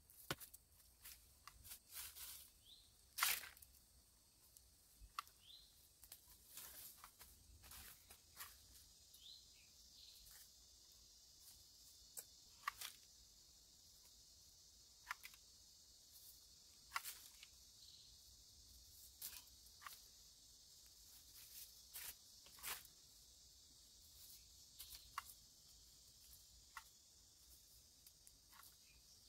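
Faint, irregular clicks and crackles of litter being picked up with a reacher grabber among dry leaves and debris, over a steady high hiss.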